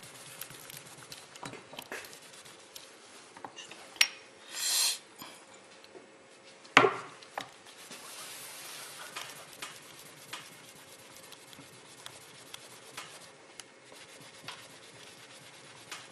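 Paper tissue rubbing and wiping over a small test piece on a workbench, with scattered light clicks as it is handled. A short hiss comes about five seconds in, and one sharp knock about seven seconds in.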